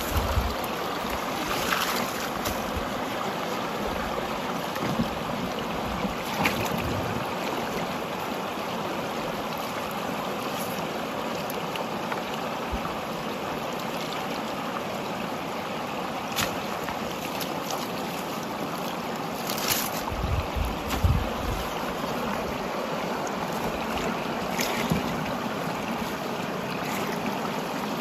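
A steady rushing noise with a few short knocks and rustles from handling the bamboo trap and mesh net, and some low buffets about two thirds of the way through.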